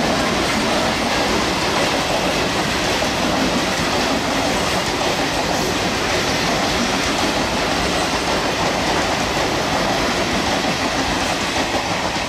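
Mumbai suburban electric multiple unit (EMU) local train running past at close range: a loud, steady noise of its wheels and coaches on the track.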